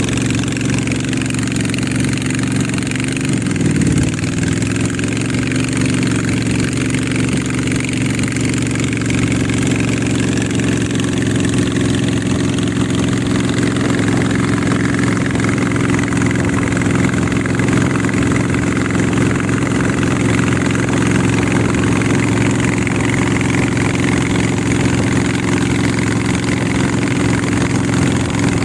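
A river boat's engine running steadily. Its speed drops briefly and picks up again about three to four seconds in.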